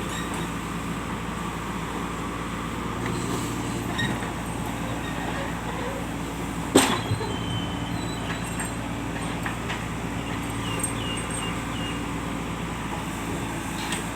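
Diesel engine of a JCB backhoe loader running steadily, with a single sharp metallic knock about seven seconds in.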